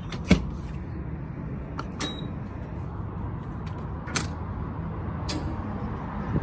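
Car engine idling steadily, with a few sharp clicks and knocks over it.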